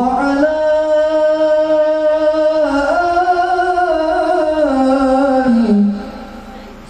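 One man singing an Arabic devotional salawat chant into a microphone, unaccompanied and amplified. He holds one long, ornamented phrase whose note steps up about three seconds in, then slides down and stops about a second before the end.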